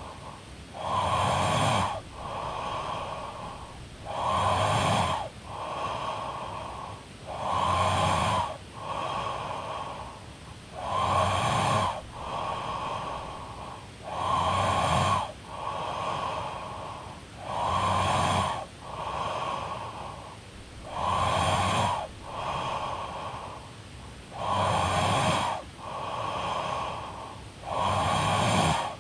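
A woman snoring in her sleep with steady, regular breathing: each loud snore is followed by a softer breath, the cycle repeating about every three and a half seconds.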